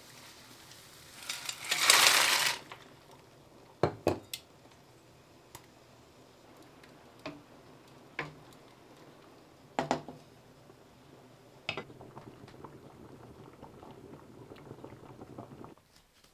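Cooking at a stove: a glass lid comes off a steel pot of boiling water with a loud splashing rush about two seconds in, then a wooden spoon knocks against the pot several times while stirring. A soft steady rustle follows and stops just before the end.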